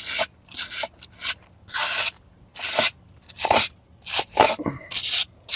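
Wire brush scrubbing over the charred surface of a torched pine carving in short, uneven back-and-forth strokes, about two a second. The brushing knocks off the burnt layer and lightens the wood.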